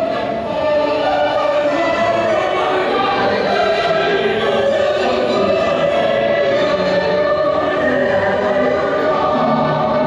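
Choral music: a choir singing long, held notes at a steady level.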